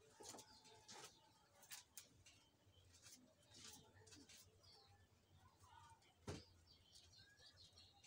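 Faint cooing of domestic pigeons, with scattered light clicks and a sharper knock about six seconds in, and a few short high chirps near the end.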